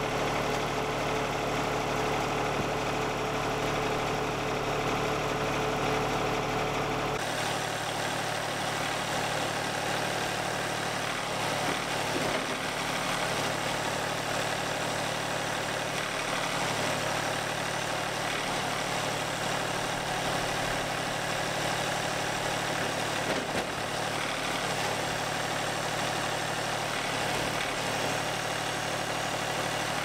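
Engine of a Wood-Mizer portable band sawmill running steadily; its sound changes abruptly about seven seconds in.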